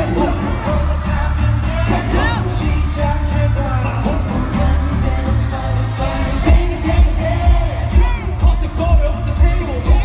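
Live K-pop concert heard from the crowd: boy band singing into microphones over a loud pop backing track with heavy bass. About six and a half seconds in, a pounding bass drum comes in at about two beats a second.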